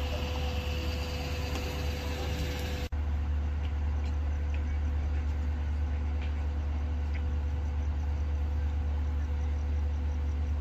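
Vehicle engines idling with a steady low rumble, broken by a brief dropout about three seconds in where the recording cuts.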